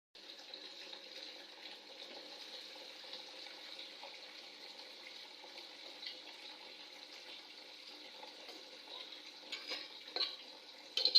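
Food sizzling steadily in a cooking pot as the khichuri is fried. Near the end come a few sharp knocks and scrapes of a spoon stirring in the pot.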